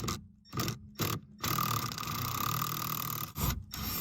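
A ratchet with a 10 mm socket working a pedal-mounting nut loose: a few separate clicks, then about two seconds of steady rapid clicking, then two more short bursts.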